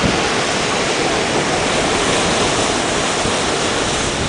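Sea surf breaking on a sandy shore: a steady rushing noise, with wind buffeting the microphone.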